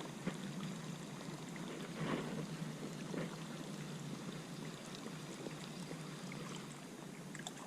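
Faint steady lapping of lake water, with a few soft knocks about two and three seconds in.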